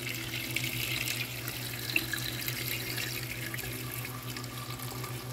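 Boiled water pouring in a steady stream into a pressure cooker, splashing onto beef trotters and whole spices as the pot fills, over a steady low hum.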